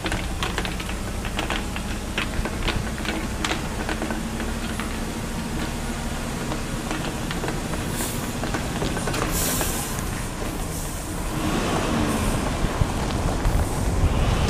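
Vehicle driving over a rough dirt road, heard from inside the following car: a steady low engine drone with irregular sharp rattles and knocks in the first few seconds. About eleven seconds in, a louder rushing road and wind noise rises.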